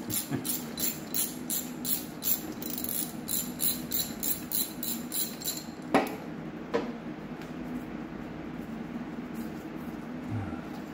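Ratchet wrench clicking at about three clicks a second as a manifold nut is backed off. The clicking stops about six seconds in, followed by two sharp metallic knocks.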